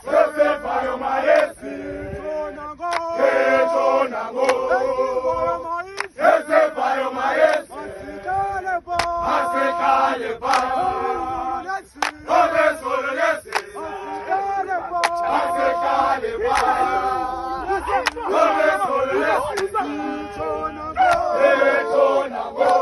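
A rugby team chanting together in unison: a group of men's voices singing short, repeated phrases, with sharp percussive hits between some phrases.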